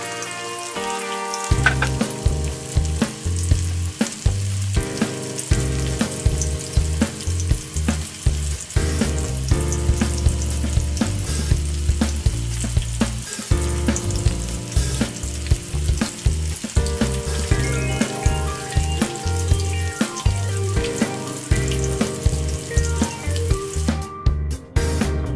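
Flour-coated chicken pieces deep-frying in hot oil in a wok, a steady sizzle. Background music with a bass line and steady beat plays over it, the bass and beat coming in about a second and a half in.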